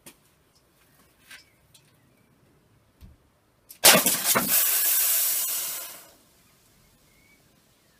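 A sharp crack as an airsoft BB from a gas revolver hits a full soda can, which bursts and sprays fizzing soda out with a loud hiss that dies away after about two seconds.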